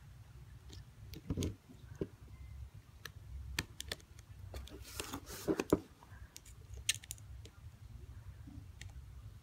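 Irregular small clicks and light scrapes of a flathead screwdriver against the metal parts of a Shimano Calais baitcasting reel as its E-clip is pried out, with a few louder handling knocks about one and a half seconds in and again around five to six seconds in.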